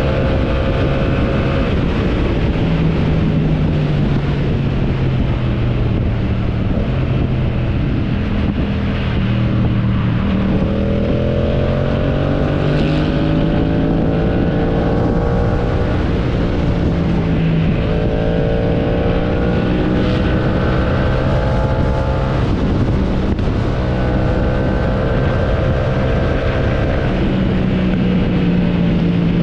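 AI-generated motorcycle engine sound, presented as a Yamaha MT-07, with wind rush. The revs hold steady at first, then climb in pitch about ten seconds in, again around eighteen seconds and once more near the end, easing back between the rises.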